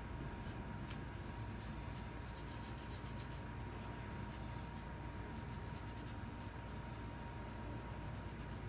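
Soft scratchy rubbing and dabbing of a cotton wad on EVA foam, shading a craft piece around the eyes, over a faint steady tone.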